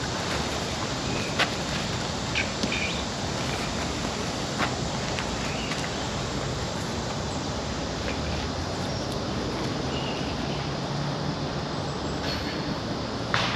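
Woodland ambience: a steady rushing of wind, with a few short bird chirps and several sharp clicks scattered through it.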